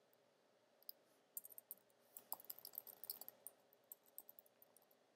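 Faint, rapid clicking of a computer keyboard being typed on, several clicks a second, densest in the middle.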